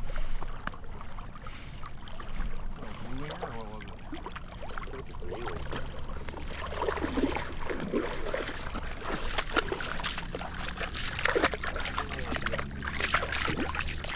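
Black Labrador retriever swimming and wading through shallow pond water with a retrieved duck, making sloshing and splashing sounds. The splashes grow louder and more frequent in the second half as the dog reaches the shallows and climbs out.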